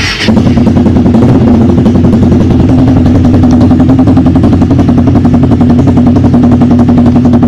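Hyosung GV250's carbureted V-twin running loud and steady with its exhaust silencer insert removed, a fast, even train of sharp exhaust pulses.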